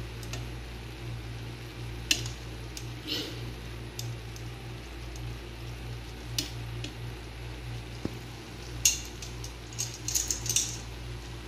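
Metal tongs turning thin slices of marinated beef in a nonstick frying pan, with a few sharp clicks and scrapes of the tongs against the pan, a cluster of them near the end. Under it are a faint sizzle of the meat cooking on low heat and a steady low hum.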